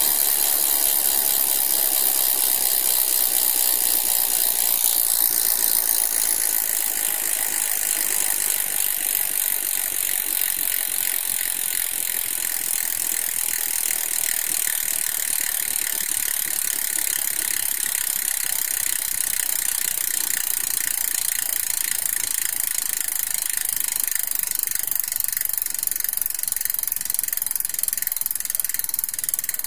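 Freehub of a Giant P-R2 rear wheel clicking as the wheel coasts with the cassette held still: a fast, even stream of ratchet clicks, mostly high-pitched. It eases off slightly over the first several seconds, then holds steady.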